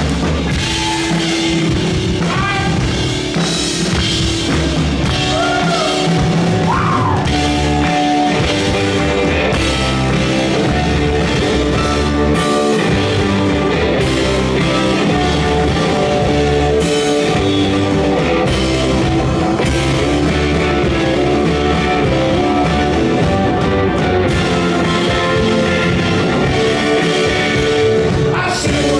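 Live rock band playing loud, with electric guitars, bass and drum kit under a male lead vocal.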